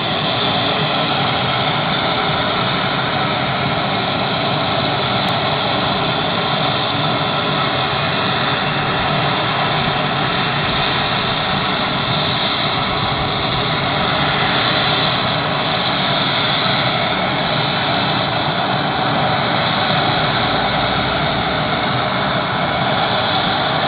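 Steady aircraft engine noise on an airport ramp: a continuous rumble with a held whine above it that neither rises nor falls.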